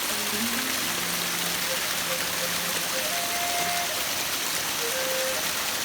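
Waterfall water rushing in a steady, even hiss.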